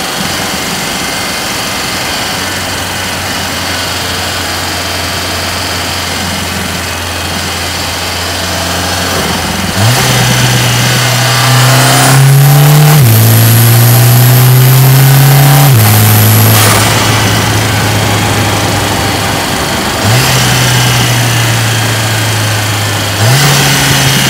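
Engine of a Mercedes-AMG GLA 45, a turbocharged 2.0-litre four-cylinder, heard from inside the cabin. It runs steadily at cruise, then about ten seconds in the note jumps up and climbs as the car accelerates hard, drops back at a gear change and climbs again with a high whine over it. It settles back, and the note steps up twice more near the end.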